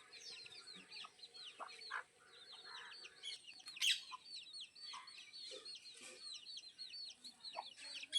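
A flock of chickens clucking, with a steady stream of short, high calls several times a second and a few louder calls.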